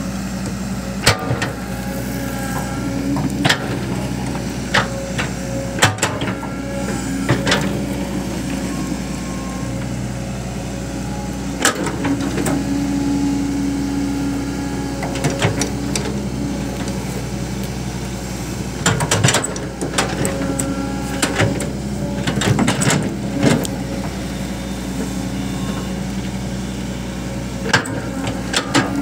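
Caterpillar 311 hydraulic excavator's diesel engine running steadily under digging load, with repeated sharp clanks as the steel bucket scrapes and knocks through soil and rocks.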